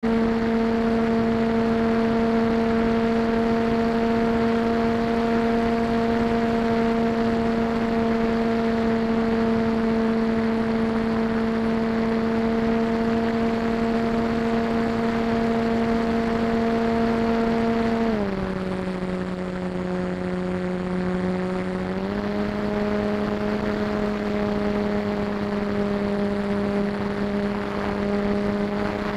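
Onboard sound of a model airplane's motor and spinning propeller: a steady drone over a rush of air. About 18 seconds in it drops to a lower pitch and gets a little quieter, then steps back up about four seconds later.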